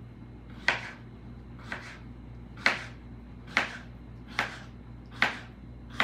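Kitchen knife slicing peeled cucumber into bite-sized pieces on a plastic cutting board: about seven short, sharp cuts, roughly one a second, each ending as the blade meets the board.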